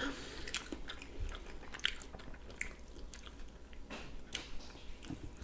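Close-miked chewing and biting as two people eat fried egg on toast that has gone soft rather than crisp, with scattered small wet mouth clicks.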